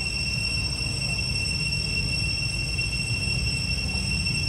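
A steady, high-pitched insect drone that holds one unchanging pitch, over a constant low rumble.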